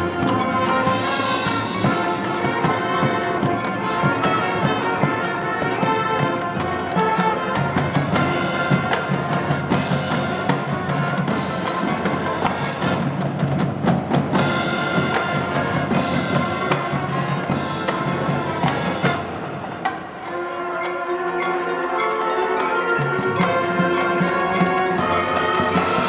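Marching band playing: brass and marching drums over a front ensemble of mallet percussion. About twenty seconds in the low end drops away and the music thins for a few seconds, then the full band fills back in.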